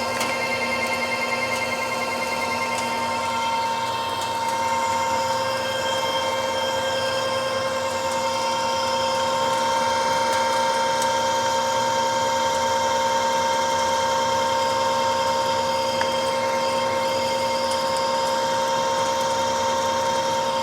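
Precision Matthews manual lathe running under load on a facing pass across a pipe flange, with a steady whine from the machine and the hiss of the carbide insert cutting, about 60 thou deep.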